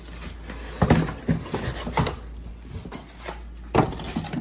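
Cardboard packaging knocking and plastic wrap rustling as a plastic-wrapped cooking pot is lifted out of its box. A few sharp knocks, the loudest about a second in and again near the end.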